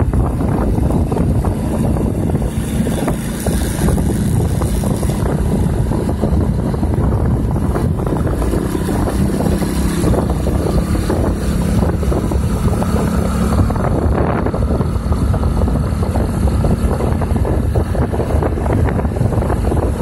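Wind buffeting the microphone of a moving vehicle, a steady low roar with vehicle running noise underneath.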